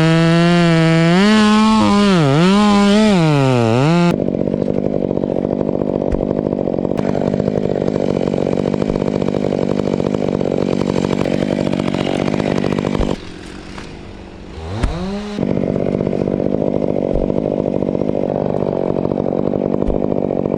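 Gas chainsaw revving, its pitch rising and falling, then running steadily under load as it cuts wood. About 13 seconds in it briefly drops back and revs up again before cutting on.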